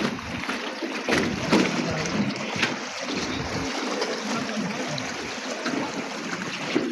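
Water splashing and sloshing around a small rowed boat, with scattered short knocks and splashes from the oars.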